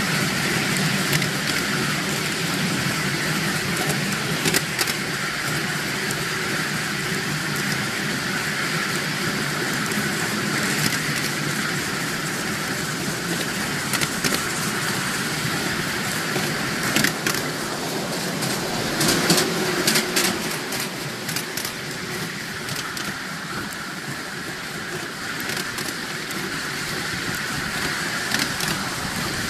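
Miniature railway train running along the track, heard from a passenger carriage: a steady rumble and clatter of wheels on the rails. A cluster of sharper clicks and knocks comes about two-thirds of the way through.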